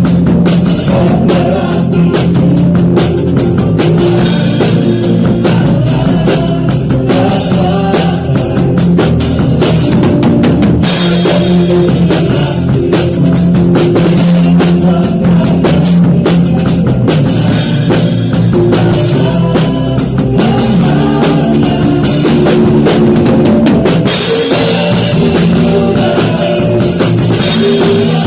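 Acoustic drum kit played in a full band groove, with kick, snare and cymbals over keyboard, electric guitar and bass guitar. About 24 seconds in, the cymbals turn to a steady wash.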